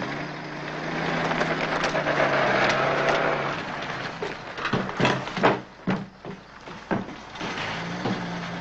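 A steady low hum under a hiss that swells and fades over the first few seconds, then a series of sharp knocks and footsteps on a hard floor in the second half.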